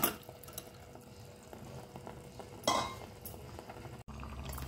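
Steel spoon stirring mashed boiled mango into thick masala in a metal pot, with two short louder scrapes and slaps, one at the very start and one near three seconds in, over a low steady sizzle of the cooking masala.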